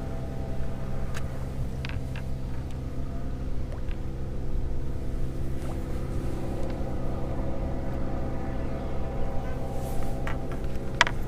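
Boat motor running steadily, with a few short clicks near the end.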